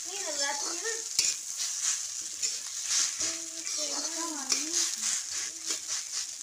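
Metal spatula stirring and scraping fried rice around a kadhai, with the oil sizzling steadily under it.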